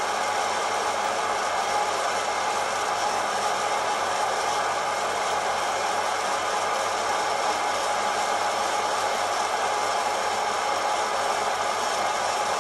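Kaffelogic fluid-bed coffee roaster running mid-roast: its fan blows hot air up through the beans in the glass roast chamber, a steady, even whoosh with a faint steady hum in it.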